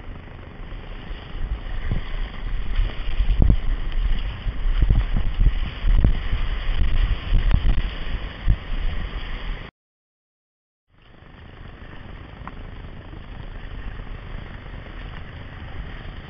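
Ocean surf rushing and churning around rocks, with heavy low buffeting on the microphone as whitewater breaks over the kayak's bow, loudest from about two to nine seconds in. The sound cuts out for about a second, then returns as a steadier, quieter wash of surf.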